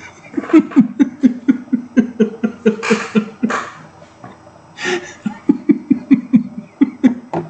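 A man laughing hard in two long runs of quick, rhythmic 'ha's, about four a second, with a breath taken between the runs.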